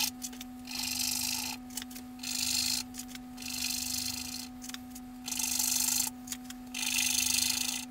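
Henri Roché soft pastel stick being scrubbed back and forth on pastel paper to lay down solid swatches of colour. It comes as a series of dry, scratchy rubbing strokes, each about a second long with short pauses between.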